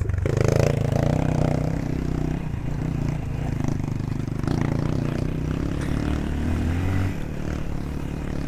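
Aveta VTM 250 LX motorcycle engine running while riding off-road. Its note rises briefly and drops off about seven seconds in, with clatter from the bike over the rough trail.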